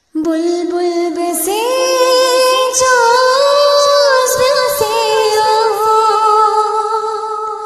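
A woman singing a traditional Balti qasida solo, in long held notes with slow glides and small ornamental turns. The voice starts suddenly on a lower note and steps up a second and a half in.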